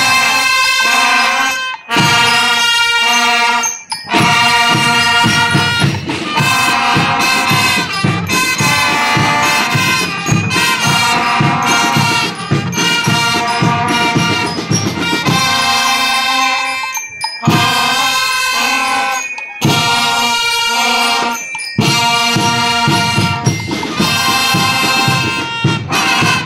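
School band playing, brass over a steady drum beat, with a few short breaks in the music; it stops abruptly at the end, closing the piece.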